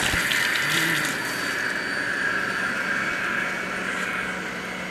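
Breville multi-speed centrifugal juicer running at speed 4 on pineapple, its motor a steady whine. A knock right at the start and rougher grinding noise through the first second and a half, then the motor runs on evenly.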